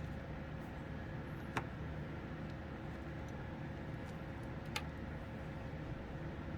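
Two small sharp clicks, about three seconds apart, over a steady low hum.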